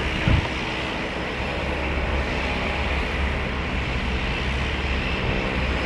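Jet airliner engines running with a steady low rumble and rush, and a short thump just after the start.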